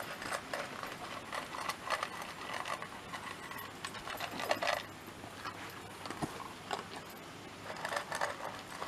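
Shiba Inu dogs eating dry kibble topped with raw horse meat from their bowls: irregular crunching and chewing, with small clicks of kibble against the bowl.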